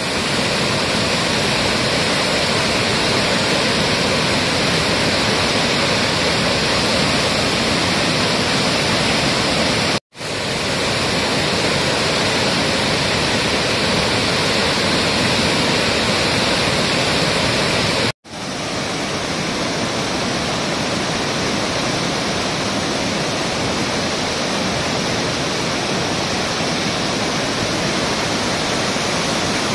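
Floodwater rushing and churning through the open spillway gates of a dam, a loud steady wash of water noise from heavy-rain flood release. It is broken twice by brief dropouts to silence, about ten and eighteen seconds in.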